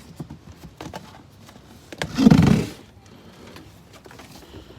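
Cardboard radiator box and its packing being handled: scattered small clicks and knocks, with one louder scraping rush of cardboard about two seconds in.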